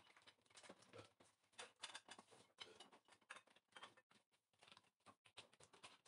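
Faint, irregular light clatter and knocks of a plastic food container and dishes being set into a tabletop dishwasher's lower wire rack.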